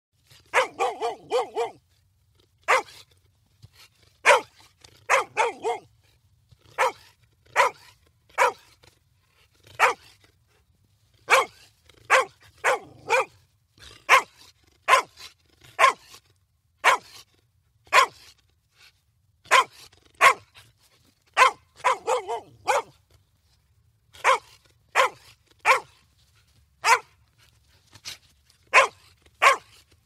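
A dog barking repeatedly: single barks and quick runs of three or four, often about a second apart.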